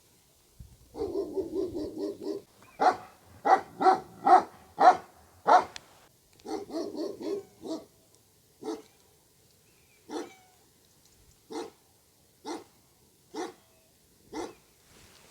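A dog barking: quick runs of rapid yaps, a run of loud barks, then single barks about once a second.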